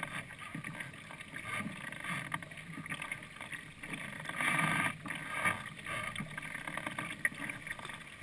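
Faint strokes of a double-bladed kayak paddle: the blades dipping and pulling through the water with small splashes and drips, and water moving along the kayak's hull.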